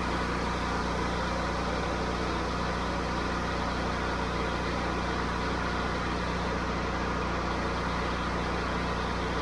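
Honda IGX800 EFI V-twin engine running steadily while driving the pressure-washer pump as a surface cleaner is in use; for now it holds its speed under the load without bogging.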